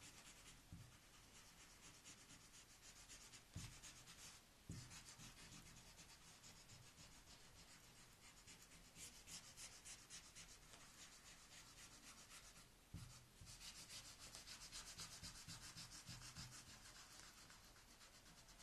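Faint, quick back-and-forth scrubbing of an eraser on drawing paper, rubbing out pencil lines, broken by short pauses and a few soft knocks.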